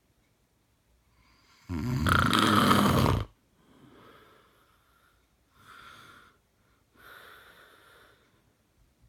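A man snoring in his sleep: one loud snore about two seconds in, then three quieter snoring breaths.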